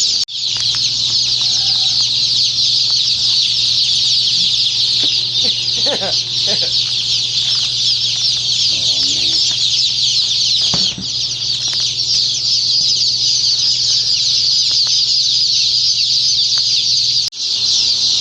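A dense, continuous chorus of hundreds of day-old chicks peeping together: countless short, high chirps overlapping without a break.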